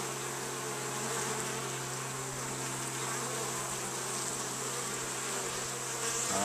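Many honeybees buzzing at a busy hive entrance: a steady hum.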